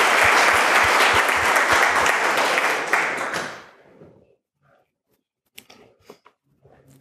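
Audience applauding, dying away about three and a half seconds in, followed by a few faint knocks.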